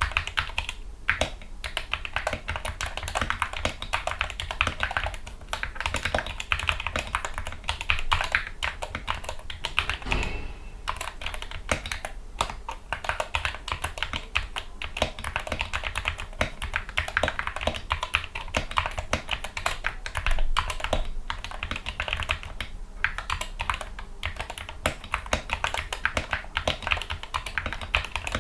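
Typing on a Gamakay MK61 60% keyboard with lubricated Gateron Yellow optical linear switches, PBT keycaps and foam dampening: a fast, continuous stream of key clacks. There is a brief lull with a low thud about ten seconds in.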